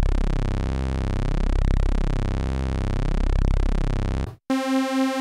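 Korg DW-8000 synthesizer playing two slightly detuned sawtooth oscillators: a very low held note whose phasing pulses at a perfectly even rate, about every second and a half to two seconds, then a higher note from about four and a half seconds in. The phasing repeats exactly every time, like an LFO, the mark of its digital wavetable oscillators rather than analog drift.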